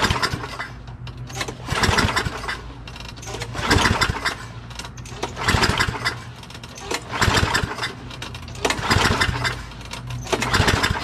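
Craftsman push mower's Tecumseh 6.75 engine being pull-started: the recoil starter is yanked about seven times, a couple of seconds apart, each pull a whirring crank that does not catch. The engine fails to fire, which the owner suspects is a plugged carburetor that will not prime.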